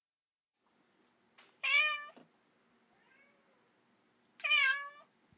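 A cat meowing: two clear meows about three seconds apart, with a faint short mew between them.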